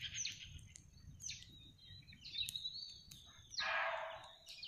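Birds calling loudly and repeatedly: short, high, falling calls about once a second, with a longer, harsher call a little past the middle. Wind rumbles low on the microphone underneath.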